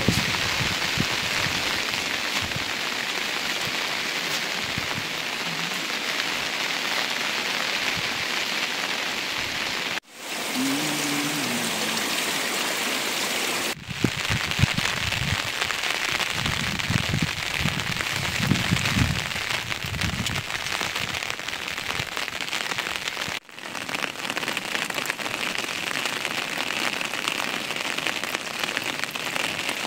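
Steady heavy rain falling, an even hiss that breaks off and resumes at a few abrupt cuts.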